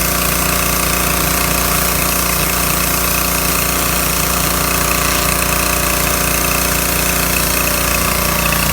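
Duromax 7 hp gas pressure washer's engine running steadily under load, with the hiss of the high-pressure water jet spraying concrete.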